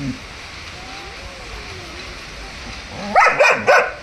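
German Shepherd puppy giving three quick, high, yelping barks in a row about three seconds in.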